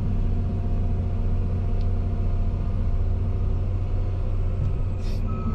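John Deere 350G excavator's diesel engine running steadily, heard from inside the cab as the machine tracks forward. A high warning beep from the travel alarm starts near the end.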